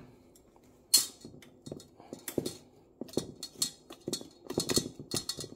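Wire whisk beating eggs into dry waffle mix in a stainless steel bowl: irregular scraping and clinking strokes that come faster in the second half, after a sharp clack about a second in.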